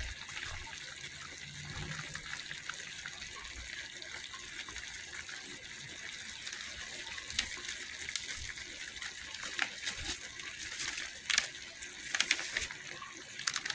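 Chicken leg quarters simmering in their juices in a pot, a steady hiss, with a few light taps now and then.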